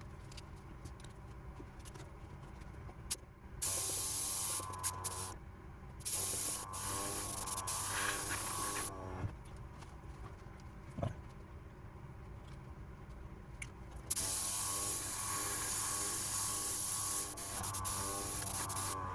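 Airbrush spraying spirit stain in three hissing bursts of a few seconds each. Under them the kit's small airbrush compressor hums steadily.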